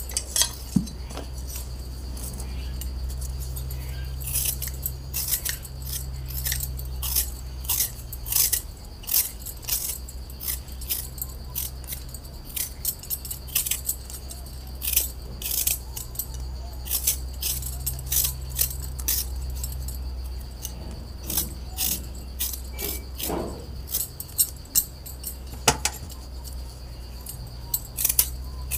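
Hand vegetable peeler scraping the skin off a raw potato in many short, quick strokes, with bangles clinking on the wrists.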